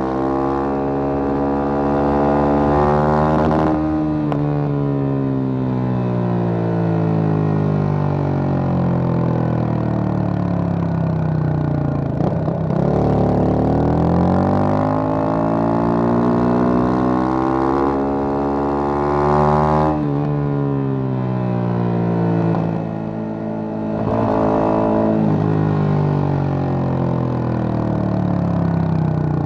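Yamaha FZ25's single-cylinder engine through an MTG MotoTunings aftermarket exhaust, riding: the revs climb and fall away three times as the bike accelerates and eases off, with short dips between.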